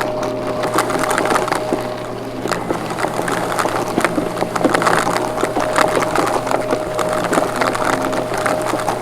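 Vacuum cleaner running with a steady motor whine, overlaid by dense, irregular crackling clicks.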